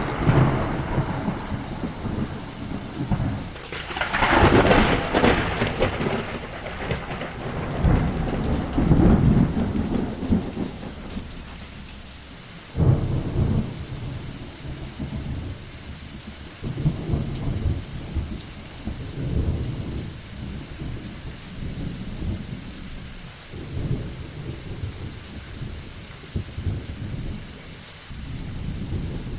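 Thunderstorm: rolling thunder over steady rain. A loud, sharp thunderclap comes about four seconds in, and another sudden clap comes near the middle, followed by repeated lower rumbles.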